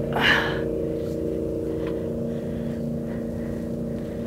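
A boat's motor running with a steady hum. About a quarter second in there is a brief, loud rushing burst of noise.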